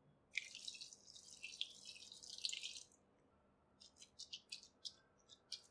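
Water poured from a cup onto flattened rice (poha) in a bowl, a steady splashing for about three seconds. Then a series of short wet crackles as a hand mixes the soaked flakes.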